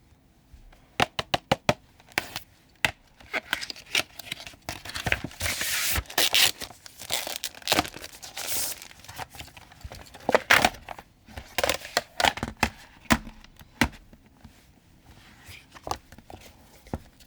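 Product packaging being opened by hand: a run of sharp clicks about a second in, then several seconds of tearing and crinkling, followed by scattered clicks and taps that thin out near the end.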